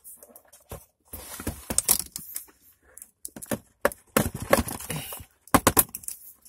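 Plastic rear cover and snap-fit clips of a Philips 193V5L LCD monitor clicking and cracking as the cover is pried open by hand, with scraping between the clicks. A dense run of clicks about four seconds in, and the sharpest snaps near the end.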